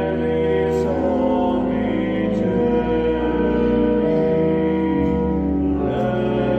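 Church pipe organ playing a hymn in held chords over deep pedal bass notes, moving to a new chord about every second.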